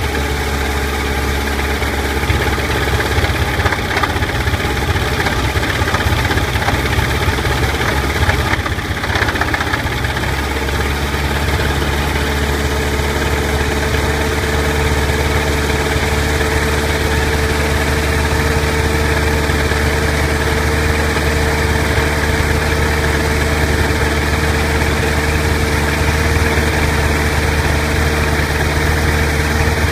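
Rotax 914 turbocharged four-cylinder boxer aircraft engine, uncowled, running at idle just after being started, propeller turning. About nine seconds in the sound dips briefly, then the idle evens out and runs steadily.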